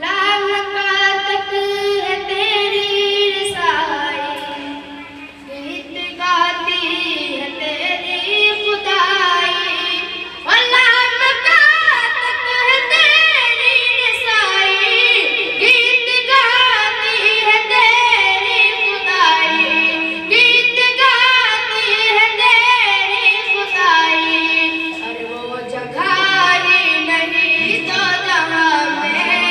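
A boy singing a naat solo into a microphone, unaccompanied, in long held and wavering melodic phrases with short breaths between them.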